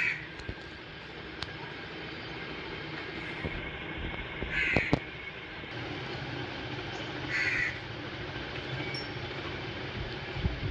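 Crow cawing: three short harsh caws a few seconds apart, over a steady background hiss.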